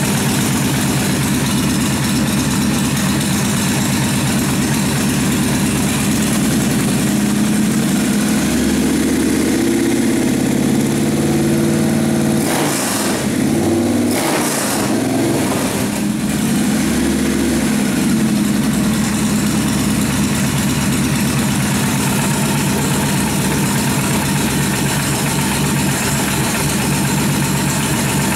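Freshly rebuilt Kawasaki 1600 V-twin engine running, revved up and back down in the middle with a few short sharp noises over it, then settling back to a steady idle.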